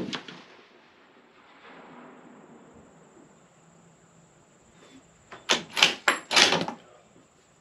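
The echo of a 300 PRC rifle shot fading out, then about five seconds in the rifle's bolt being worked: four or five sharp metallic clacks over about a second and a half as the spent case is ejected and the next round chambered.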